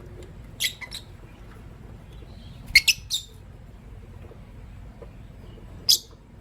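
Lovebirds, a green masked lovebird and a pastel white one, giving short sharp high chirps: a pair near the first second, three quick ones about three seconds in, and a single chirp near the end.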